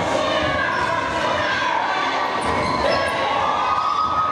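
Basketball game noise in a gym: a ball bouncing on the hardwood floor, with shouting voices and sneaker squeaks over it.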